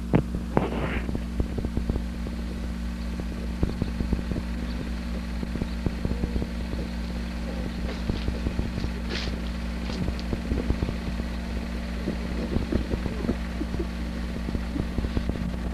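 A steady low hum with many faint, irregular clicks and crackles throughout, and a brief hiss about nine seconds in.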